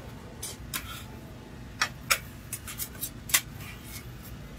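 Metal spatula scraping and tapping on a steel griddle: a handful of short, sharp scrapes and clicks spread irregularly over a low steady background hum.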